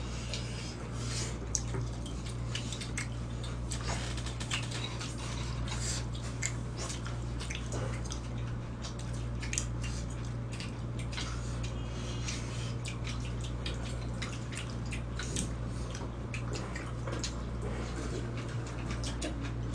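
Spoons and chopsticks clinking against stone dolsot bowls and side dishes during a meal: many small irregular clicks over a steady low hum.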